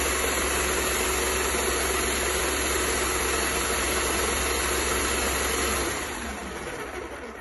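Wagner Control Pro 250M airless paint sprayer's pump and motor running steadily with a low hum while being primed with water to flush it through. About six seconds in it is switched off and the sound dies away.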